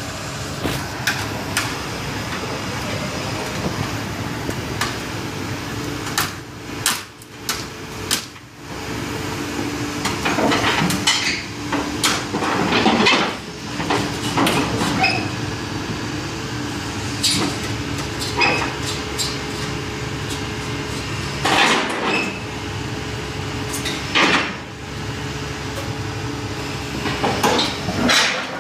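Caterpillar 320D excavator's diesel engine running steadily, with repeated metallic clanks and knocks from its steel tracks and undercarriage as it is unloaded; the knocking is heaviest about ten to thirteen seconds in and again near twenty-two and twenty-four seconds.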